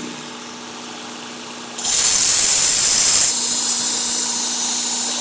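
Work Sharp Ken Onion Edition belt sharpener with the Blade Grinding Attachment, its motor running with a steady hum. About two seconds in, the edge of a steel chef knife is drawn across the abrasive belt with a loud grinding hiss, a sharpening pass to raise a burr. The hiss eases a little after a second or so and carries on.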